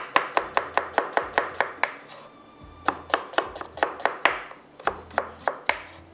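Kitchen knife chopping vegetables on a cutting board in quick, even strokes, about five a second, pausing briefly twice.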